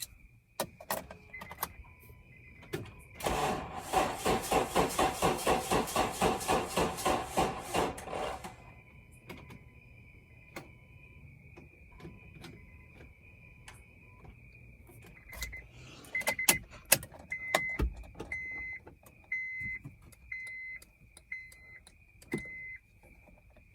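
2009 Honda CR-V's starter cranking the engine slowly and rhythmically, about four turns a second, for some five seconds without it catching: the labored cranking of a weak battery run down by a bad alternator. After that a dashboard warning chime beeps about once a second.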